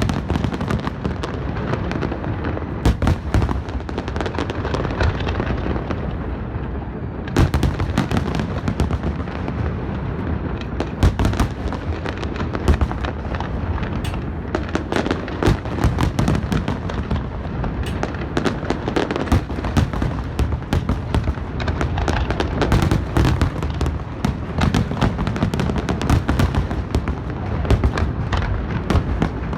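Large fireworks display: aerial shells bursting in quick succession over a continuous low rumble, with scattered bangs at first and a dense run of sharp cracks from about seven seconds in.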